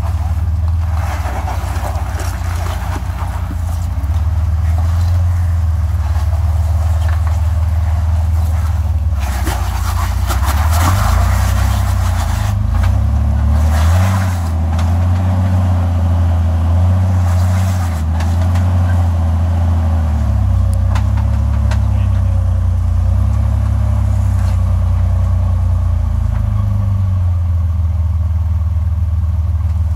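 Off-road vehicle's engine working at low revs as it crawls over boulders, the engine note rising and falling with the throttle, with stretches of rougher noise over it.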